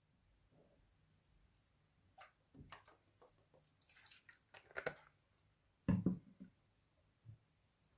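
Dark sauce poured from a small bottle onto sliced vegetables in a bowl, with scattered soft drips and splashes. A heavier thump comes about six seconds in, and a light tap follows near the end.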